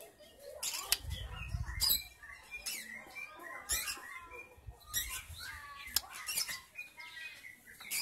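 White-rumped shama calling in short bouts of quick chirps and curving whistled notes, mixed with sharp clicks and wing flutters as it hops about its cage. A brief low rumble comes about a second in.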